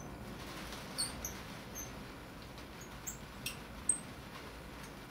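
Small screwdriver working a screw on a stainless steel watch caseback: a few short, high-pitched squeaks of the tip on the screw, with light clicks in between.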